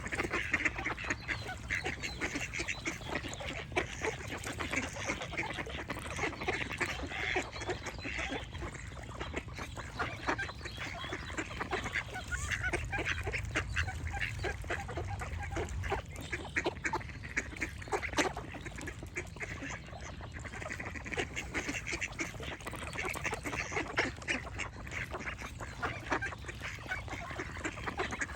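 Ducks quacking continually, many short calls overlapping, with small birds chirping in the background.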